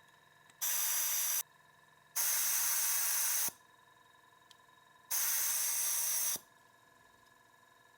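Desoldering gun's vacuum pump triggered three times, each a sharp-edged hiss of sucked air lasting about a second, drawing molten solder from stubborn pogo-pin joints.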